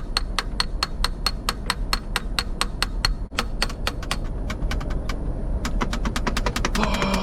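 Rapid, evenly spaced clicking, about six sharp clicks a second, over a low steady hum.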